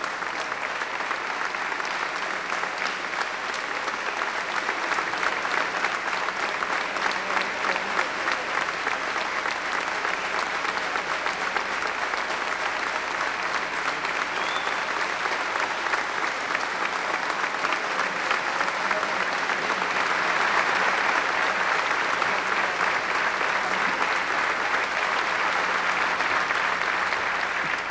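A large audience applauding steadily, growing gradually louder through the first two-thirds and stopping right at the end.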